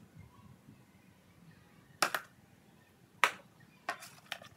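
A few sharp clicks and taps of a spoon knocking against a plastic bucket as it scoops: one about two seconds in, then several in quick succession near the end.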